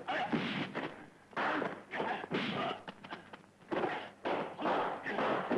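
Dubbed kung fu film fight sound effects: a run of punch and kick impacts, dry whacks and thuds coming one after another with short gaps.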